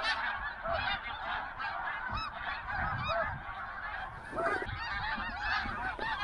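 A huge flock of snow geese calling overhead: a continuous din of many overlapping short, high yelping honks.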